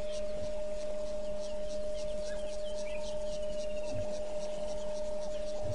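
A steady, pure high-pitched tone, an electrical whine in the live camera's audio feed, unchanging throughout, over faint bush ambience with a few soft bird chirps.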